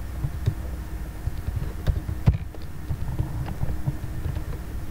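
A few scattered clicks from a computer keyboard and mouse, one louder knock a little past two seconds in, over a steady low electrical hum.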